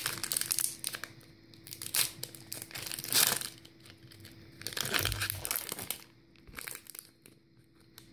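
Foil wrapper of a Pokémon TCG booster pack crinkling and tearing as it is pulled open by hand, in several bursts with short pauses; the loudest burst comes a little past three seconds in.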